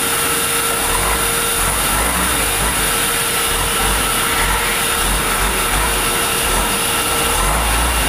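Sawmill band saw running steadily, a constant mechanical noise with a steady whine over it.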